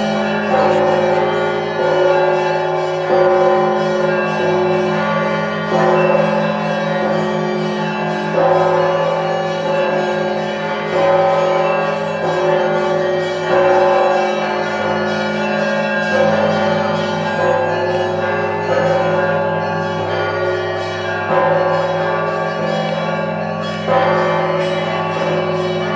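Orthodox monastery church bells ringing together: a strong stroke about every two and a half seconds over the continuing ring of several bells, with a low hum sustained between strokes.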